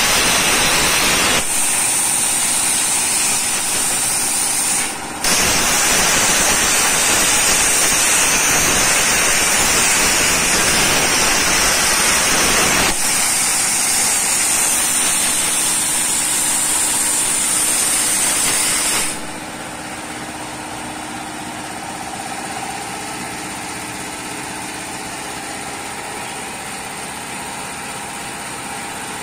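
CNC plasma torch cutting steel sheet: a loud, steady hiss with a high whine, broken briefly about five seconds in and changing in tone about thirteen seconds in. About nineteen seconds in the hiss cuts off, leaving a quieter steady machine hum.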